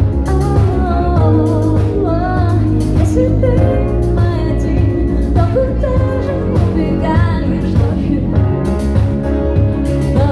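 Live cover band playing through a PA system: a woman sings lead over electric guitar, keyboard, bass and drums, with a heavy bass end and a steady drum beat.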